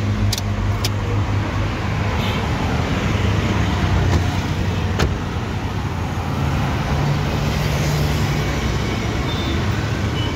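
Steady car and street traffic noise, with a few sharp clicks near the start and one about five seconds in. From about six to eight and a half seconds in, a low hum is added as the power side mirror's folding motor folds the mirror in.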